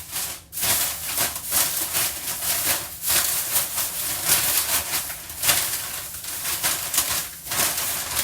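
Loud rustling and crinkling, with many small knocks, of packages being handled and moved about.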